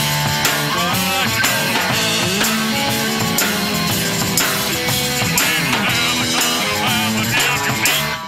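Rock band playing live, an instrumental stretch with guitar over bass and drum kit.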